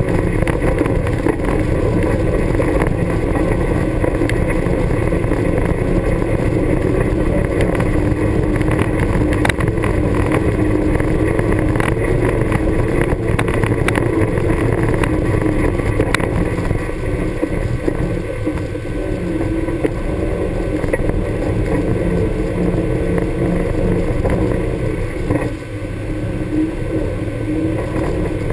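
Honda Pioneer 1000 side-by-side's parallel-twin engine running steadily as the machine drives over a rocky dirt trail, with occasional knocks from stones under the tyres.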